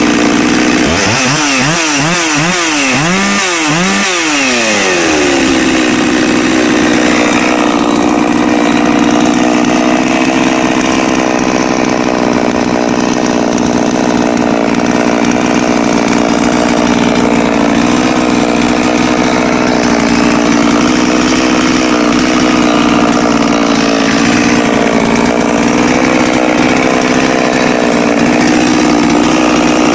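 Holzfforma G660 two-stroke chainsaw, a Stihl 066 copy on its untouched factory carburettor settings, given several quick throttle blips in the first few seconds, then settling to a steady idle.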